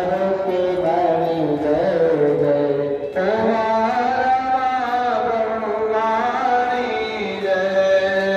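Music with a singer holding long, wavering notes.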